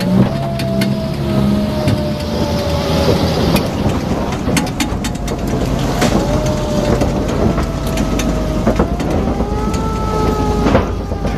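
WWII-era military vehicle driving slowly across a Bailey bridge: a steady rumble with many sharp clatters and knocks from the tyres rolling over the loose wooden deck planks. Over it runs a drivetrain whine that sinks slowly through most of the pass, then rises a little about nine seconds in.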